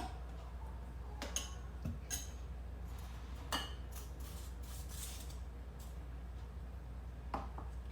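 A spoon clinking and tapping against the pan and dishes a few times, at irregular intervals, as seasonings are measured into stir-fried noodles, over a low steady hum.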